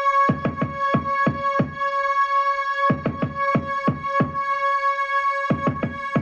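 Electronic music played through a MIFA M8 Bluetooth speaker during a sound test: a held synth note over a drum-machine beat of repeated kick hits.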